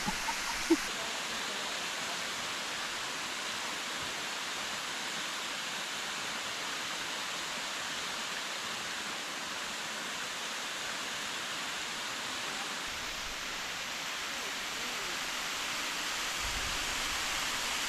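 Steady rush of falling water from a tall waterfall splashing down, an even hiss with no change. A single brief sharp sound stands out less than a second in.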